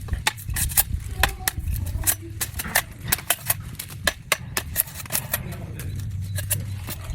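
A rapid, irregular series of sharp clicks and taps, several a second, over a steady low rumble.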